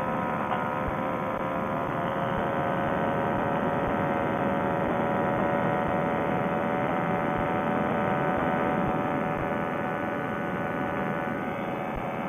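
Paramotor trike engine and propeller droning steadily in flight, its pitch creeping up slightly over the seconds.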